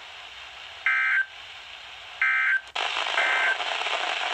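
NOAA Weather Radio EAS/SAME digital data bursts: short, buzzy, warbling bursts repeated about 1.4 s apart, the end-of-message code that closes a weekly test. About halfway in, a louder radio hiss comes up and two more bursts follow.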